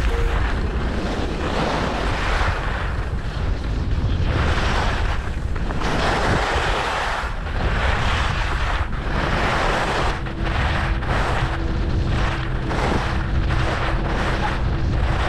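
Skis sliding and scraping down a packed piste, the hiss swelling with each turn, over heavy wind buffeting the microphone.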